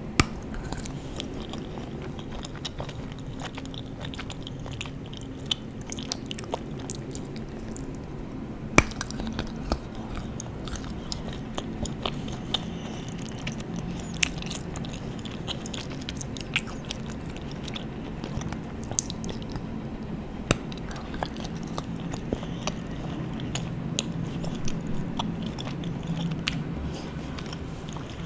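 Close-miked chewing of a chocolate-covered candy bar, with sharp snapping bites scattered throughout and the loudest snap about nine seconds in.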